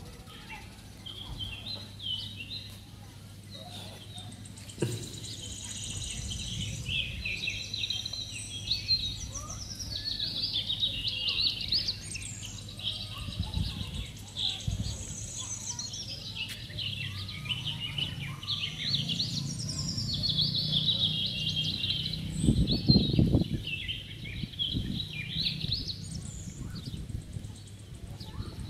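Many birds chirping and calling at once in a busy, continuous chorus of short high chirps and warbles. A steady low hum lies underneath, with a few dull thumps.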